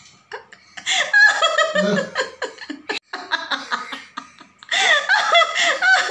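People laughing in rapid, pitched bursts, once about a second in and again, loudest, for the last second or so.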